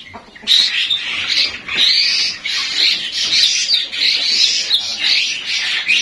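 Many caged starlings (jalak) chattering and squawking together in a dense, continuous chorus of overlapping calls, after a brief lull at the very start.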